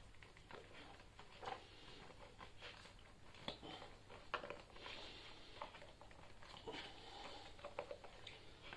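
Faint rustling and rubbing with a few light clicks: hands pulling the old rubber inner tube out from inside a scooter tyre.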